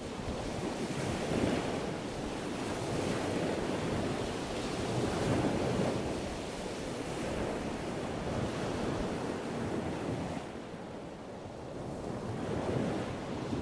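Ocean waves washing: a steady rushing noise that swells and falls back every few seconds, easing off briefly about ten seconds in.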